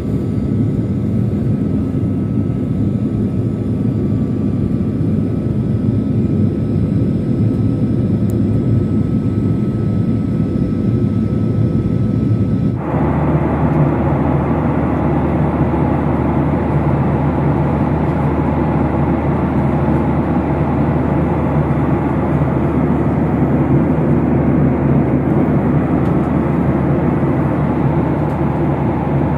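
Steady airliner cabin noise from a window seat: engines and rushing air. About thirteen seconds in the sound changes abruptly to a steadier, fuller rush.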